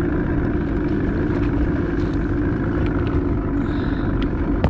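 Motorboat engine running steadily while the boat is under way, a constant drone with a low rumble beneath it.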